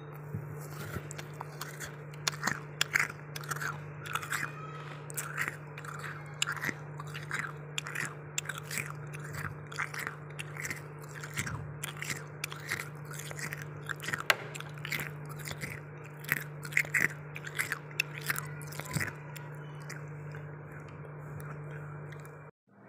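Freezer frost crunching in repeated sharp crunches, two or three a second, that stop a few seconds before the end. A steady low hum runs underneath and cuts off abruptly near the end.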